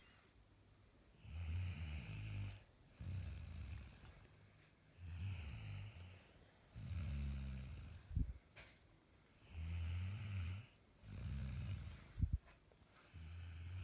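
Snoring in a steady rhythm: a low rattling snore with a hissing breath on each cycle, about one breath every two seconds. Two short low thumps, one a little past the middle and one near the end.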